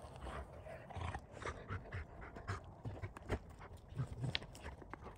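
An animal moving about close to the microphone, with irregular knocks and shuffling.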